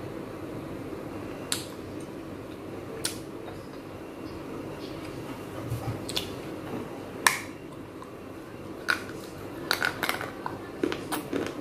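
Teeth biting and crunching a tiny baked clay pot: sharp, hard cracks a second or two apart, the loudest about seven seconds in, coming quicker near the end.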